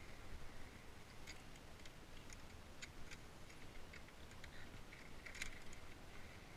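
Faint, scattered clicks and scuffs of via ferrata climbing gear and boots on a rocky ledge, with a small cluster of clicks about five seconds in, over a low rumble.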